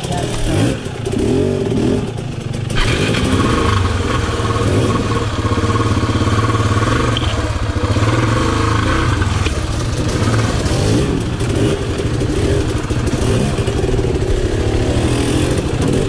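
Motorcycle engine running at low revs, mostly steady, with a few small rises and falls in revs as the bike is worked over rock.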